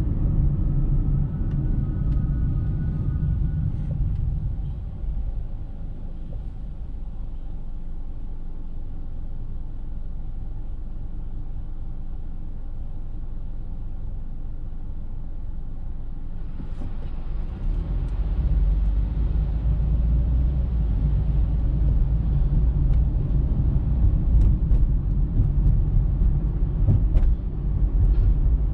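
Car road noise picked up by a dashcam in a moving car: a steady low rumble of engine and tyres. It quietens for a long stretch a few seconds in, then grows louder with more hiss a little past halfway.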